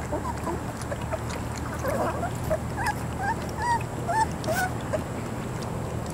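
Three-week-old Vizsla puppies giving a string of short, high squeaks and whimpers while feeding at a pan of puppy mush, most of them bunched in the middle, over a steady low hum.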